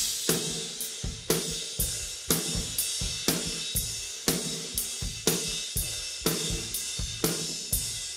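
Isolated rock drum kit track from the cymbal, tom and room-ambience mics: drums playing a steady beat with strokes about twice a second under a constant wash of cymbals, with a brighter cymbal hit about every two seconds. No guitars or vocals.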